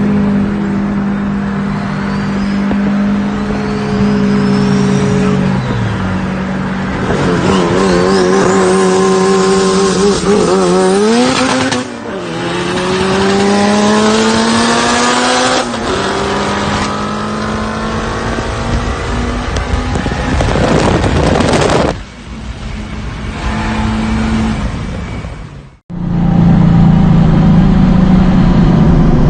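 Tuned cars accelerating hard in roll races, their engines revving up with the pitch climbing steadily. Several short clips are cut together, so the sound breaks off abruptly a few times.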